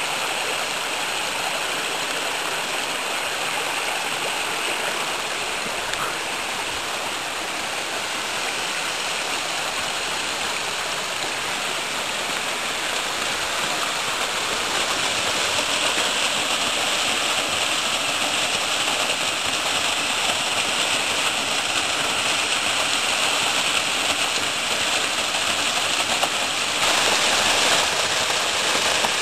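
Mountain waterfall on a small stream: a steady rush of falling, splashing water that grows gradually louder, with a slight step up near the end.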